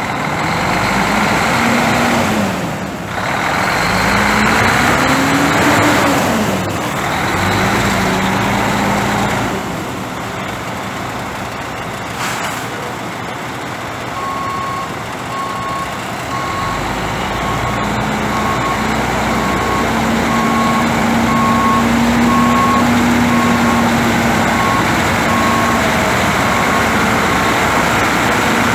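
Semi truck's Mercedes-Benz MBE 4000 12.0-litre inline-six diesel running, revved up and back down twice in the first several seconds, then running steadily. From about halfway on, a backup alarm beeps at a steady pace over the engine.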